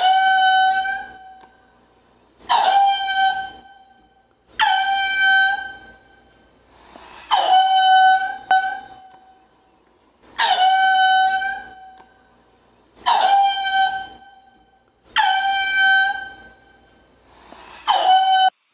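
An animal calling over and over: about eight loud, long, steady-pitched calls, each starting with a short downward slide, coming every two to three seconds.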